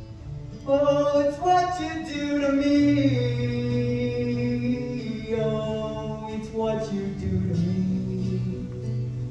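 Male voice singing held, sliding notes into a microphone over acoustic guitar accompaniment, coming in strongly just under a second in.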